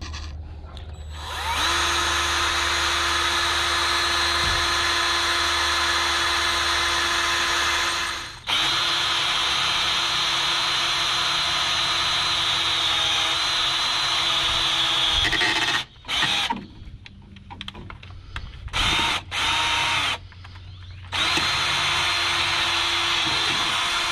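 Cordless drill drilling a hole through the old throttle-linkage connector on the injection pump, where there is no hole. The motor runs with a steady whine in long stretches of several seconds, stopping briefly twice, with a few short bursts in the middle before a last long run.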